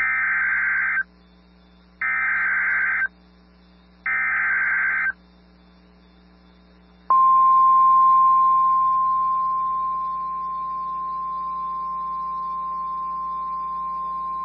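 Emergency Alert System SAME header: three one-second bursts of warbling digital data tones, one second apart. About seven seconds in, a steady 1050 Hz NOAA Weather Radio alert tone starts and eases slightly in level over the next few seconds. Together they signal the start of a severe thunderstorm warning broadcast.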